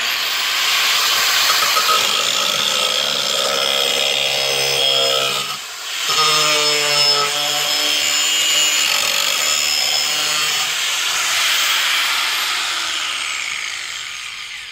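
Power grinder sharpening the steel edge of a lawn mower blade: a loud grinding hiss over the motor's whine. It starts suddenly, drops off briefly about six seconds in, then resumes and winds down near the end.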